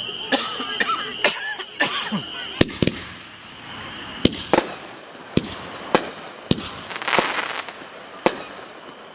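Reloadable artillery shells with tiger tails going off: a string of about a dozen sharp bangs, the mortar-tube launches and the shell breaks, spread over nine seconds, with a patch of crackle about seven seconds in.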